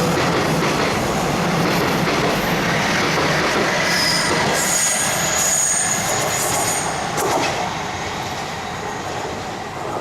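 Taiwan Railways train running past on the track, a loud steady rumble of wheels on rail. Thin high-pitched squealing tones from the wheels come in about four seconds in and stop about three seconds later, then the noise eases off toward the end.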